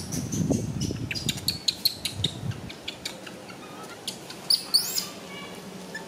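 High-pitched squeaks and short chirps, then two loud rising squeals about four and a half seconds in, from an infant long-tailed macaque crying.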